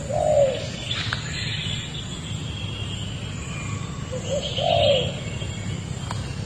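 A dove cooing twice, about four seconds apart, each call a short low note followed by a longer arched one, with other small birds chirping faintly higher up.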